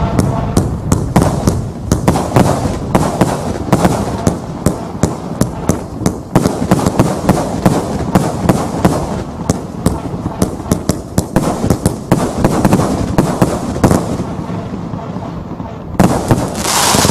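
An 80-shot firework cake (barrage) firing shot after shot: a rapid run of sharp bangs and pops, several a second, with crackling bursts. The shots thin out about fourteen seconds in, then a loud hissing, crackling burst comes near the end.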